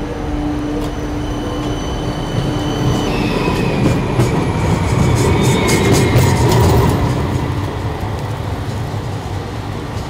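CAF streetcar running past on its rails: a steady electric hum with a whine that slides slowly lower from about three seconds in, and a run of wheel clicks as it draws level. It grows louder to a peak about six seconds in, then eases off.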